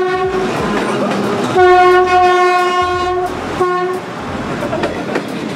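Diesel locomotive's horn sounding over the rumble and clatter of the passing train: a short blast at the start, a long loud blast from about a second and a half in lasting nearly two seconds, and a brief toot near the four-second mark.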